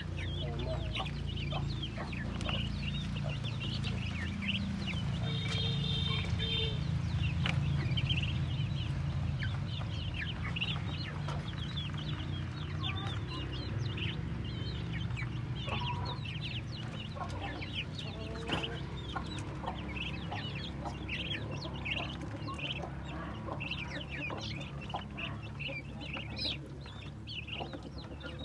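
A brood of ducklings peeping constantly, many short high chirps overlapping, over a steady low hum.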